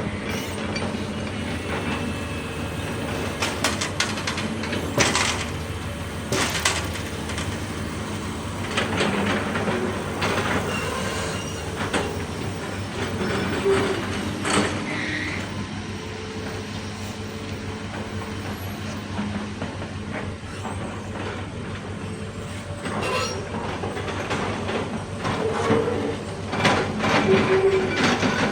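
Heavy tracked excavator working: steady diesel engine and hydraulic running, with sharp metallic knocks and clanks from the bucket and steel tracks, and a few short high squeaks.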